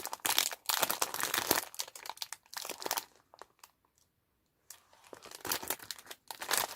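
Candy wrappers and packaging crinkling as they are handled and opened, in dense crackly stretches with a short quiet pause in the middle.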